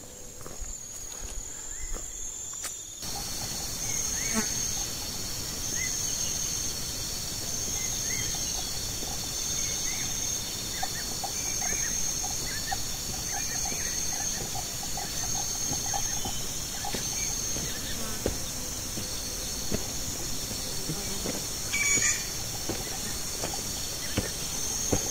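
Insects calling in the forest: a steady high drone with a high-pitched pulsing call that repeats every second or so, and a few faint chirps beneath it.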